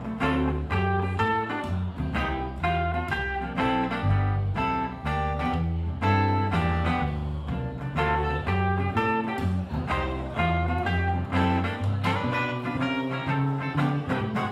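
Live blues played on acoustic guitar and upright double bass, with no vocals: quick picked guitar lines over a bass line that steps from note to note about twice a second.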